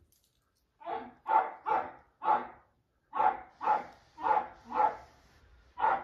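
Small dog barking repeatedly, about ten sharp barks in quick runs, starting about a second in.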